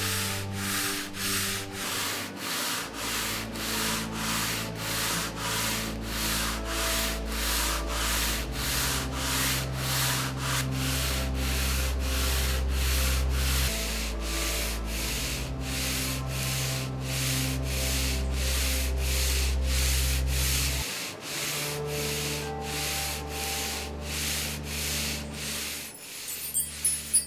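Sandpaper rubbed back and forth over wood, a steady rasping rhythm of about two strokes a second that stops shortly before the end, over steady low sustained tones.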